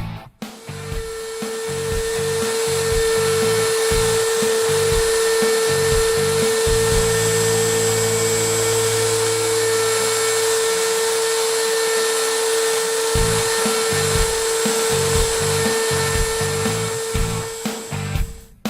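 Homemade CNC router's spindle running steadily with a high whine while engraving stars into a wooden door, with rock music playing underneath. The whine starts about half a second in and cuts off near the end.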